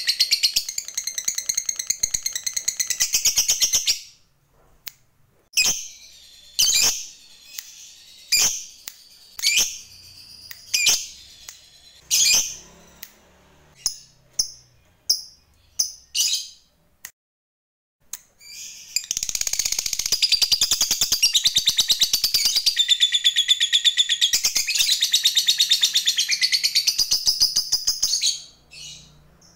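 Fischer's lovebird calling: a long, rapid, high chattering trill (the "ngekek") for the first few seconds, then single sharp chirps about once a second, then a second unbroken trill of about nine seconds from around the middle, with a few more single chirps near the end.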